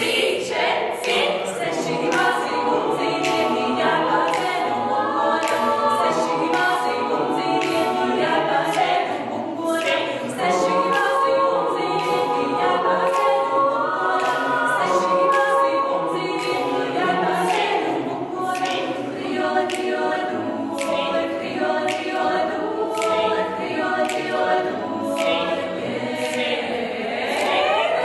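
Mixed-voice teenage vocal ensemble singing a cappella, several voice parts in harmony without accompaniment.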